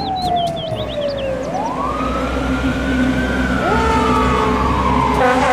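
Fire engine sirens wailing: a slow falling then rising wail that sinks again, joined about three and a half seconds in by a second siren rising and holding its pitch, over a low engine rumble.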